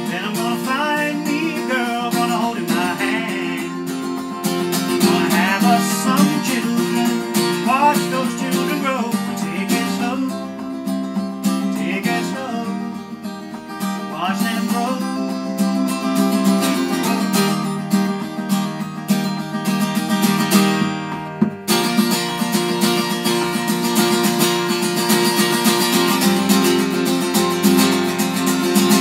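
Acoustic guitar strummed with a man singing over it. About two-thirds of the way in the playing breaks off for a moment and comes back fuller and denser.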